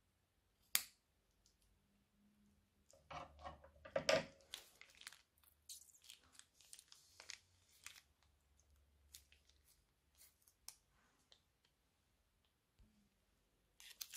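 Small scissors snip the tip off a plastic piping bag with one sharp click about a second in. Then the filled bag crinkles and crackles in the hand as slime is squeezed out of it.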